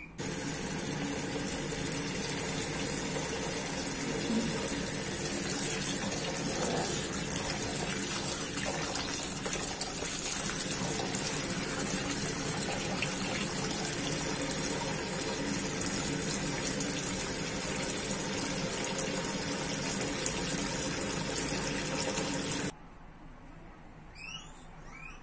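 Tap water pouring into a bowl of strawberries while a hand rubs and swishes them to wash them: a steady rush of running water that cuts off suddenly near the end.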